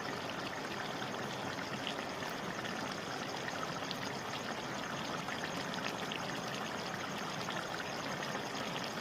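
A steady hissing, rushing noise with faint scattered ticks.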